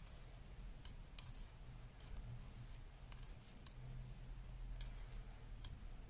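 Knitting needles clicking together as stitches are knitted: a few faint, sharp, irregular clicks over a low steady hum.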